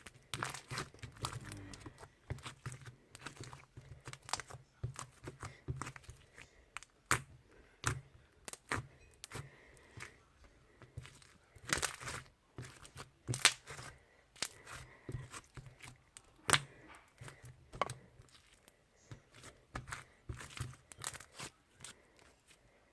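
Sticky blue slime being squished and stretched by hand, giving an irregular run of sharp wet pops and crackles, a few much louder than the rest.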